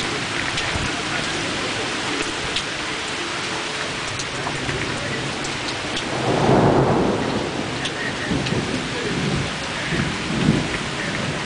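Thunderstorm: steady heavy rain, with a rumble of thunder swelling about six seconds in, a few seconds after a lightning flash, and a few smaller rumbles near the end.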